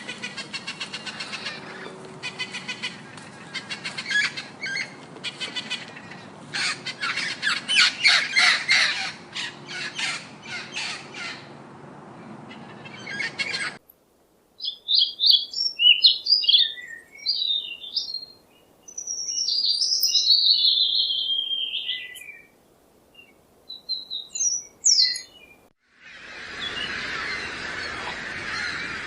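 Bird calls. First a long run of rapid, harsh, repeated calls; then, after a short break, a series of high chirps and squeaks. A different, noisier sound starts suddenly near the end.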